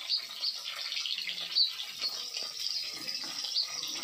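Fish pieces frying in hot mustard oil in a kadhai: a steady sizzle with scattered crackles and a few louder pops.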